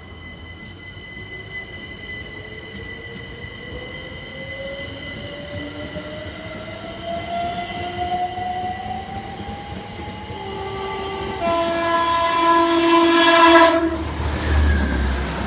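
A train approaches with a whine that rises steadily in pitch. Near the end it sounds its horn for about two seconds, then rushes past loudly.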